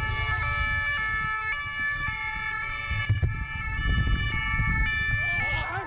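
Police motorcycle siren sounding through the pursuit, a two-tone wail stepping back and forth between pitches, over low wind and engine rumble from the moving bike.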